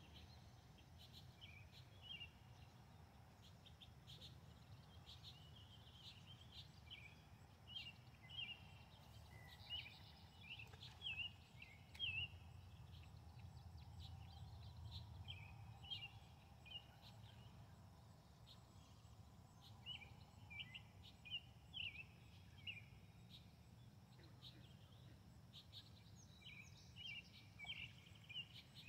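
Faint bird chirps: short high calls repeated in quick clusters all through, over a low steady background rumble.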